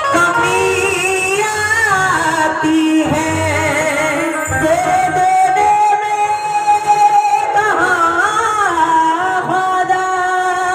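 Live qawwali: men singing a wavering, ornamented melody with long held notes, over harmonium and hand-drum accompaniment.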